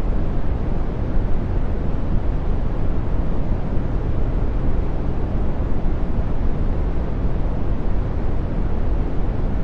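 Brown noise: a steady, deep and soft rushing noise, strongest in the bass and fading toward the treble, with no change or events.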